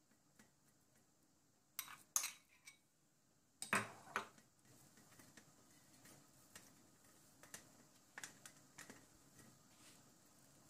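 Metal spoon clinking and scraping against a stainless steel plate as mashed potato filling is spread on bread: a few sharp clinks about two and four seconds in, then faint soft taps and scrapes.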